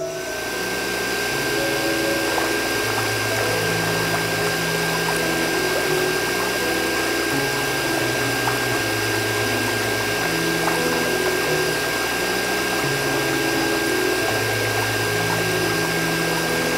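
Small electric water pump switched on and running steadily, a constant high whine over the rush of water spraying from its hose. Background music with slow stepped notes plays underneath.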